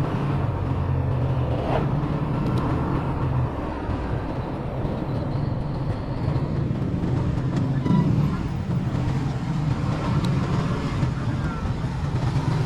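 Motorcycle engine running at low speed amid the engines of slow, congested traffic. A steady low engine hum turns rougher about three and a half seconds in.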